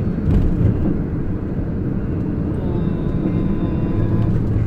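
Steady engine and road noise heard from inside the cab of a moving van at cruising speed.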